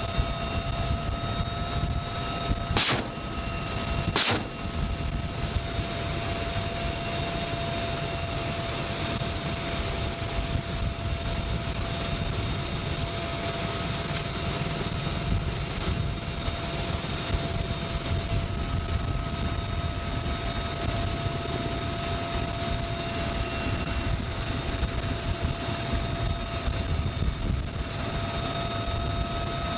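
Military helicopter in flight, heard from inside the open-doored cabin: a steady rotor and engine rumble with a high, steady turbine whine. Two sharp cracks cut through it, about three and four seconds in.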